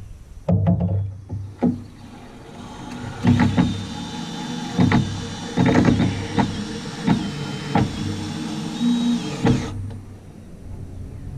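Cordless drill driving 3½-inch deck screws into pressure-treated 2x8 boards, the motor whining in spurts with sharp knocks and clacks as the screws bite and seat. A steady high whine runs from about three seconds in until just before the end.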